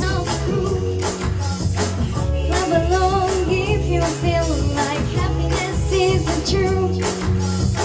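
A girl singing a pop song into a microphone over a backing track with a steady drum beat.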